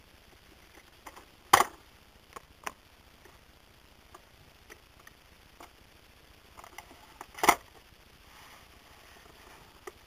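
Scattered light clicks and knocks from a cardboard-and-plastic toy coin bank being handled and turned over, with two louder sharp knocks, about a second and a half in and about seven and a half seconds in.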